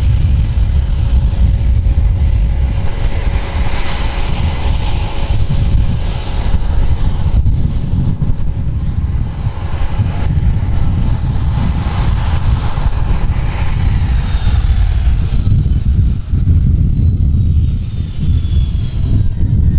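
An F/A-18F Super Hornet's twin General Electric F414 turbofan engines running on the ground, with a loud steady whine over a deep rumble. About fourteen seconds in, the whine starts falling in pitch as the engines wind down.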